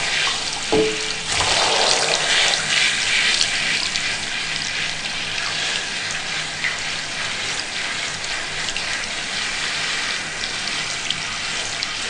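Tap water running steadily into a sink, splashing as a cat is washed under it.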